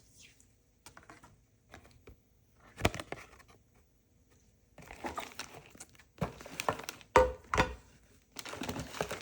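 Plastic packaging crinkling, with scattered light knocks and one louder knock about three seconds in, as items from a slime box are handled; the rustling gets busier in the second half.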